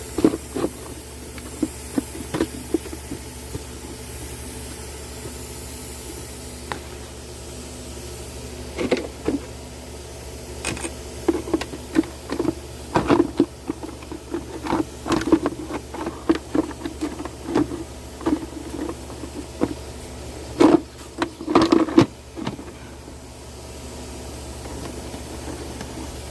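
Scattered plastic knocks and clicks as the air filter element and the plastic airbox housing are handled and set back in place. The knocks come in clusters over the back half, the loudest near the end. A steady low hum runs underneath.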